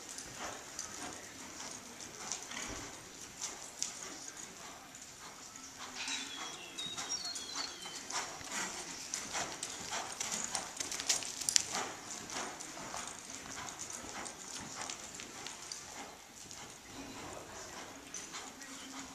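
Hoofbeats of a ridden horse loping on sand footing: a continuous run of soft knocks as its hooves strike the ground.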